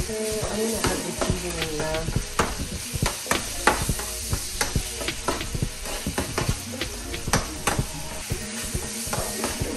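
Ground beef sizzling as it fries in its own fat in a frying pan, while a metal utensil stirs and breaks it up, with many sharp scrapes and clicks against the pan.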